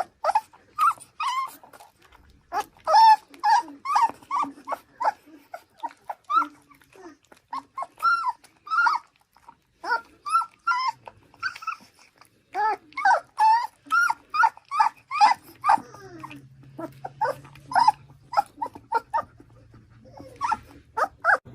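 A dog giving a long run of short, high-pitched yips and whines, several a second, with brief pauses between runs.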